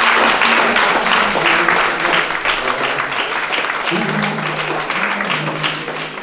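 Audience and cast applauding together in a hall, dense and steady, with music playing underneath; the music's low notes grow stronger about four seconds in.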